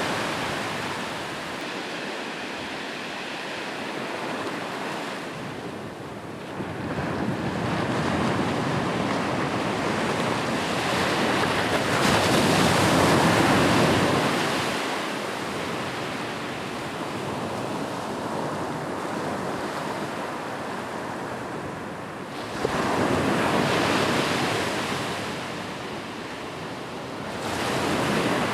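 Ocean waves breaking and washing up on a beach, a steady rush of surf that swells and ebbs about every ten seconds. The loudest wave comes about halfway through.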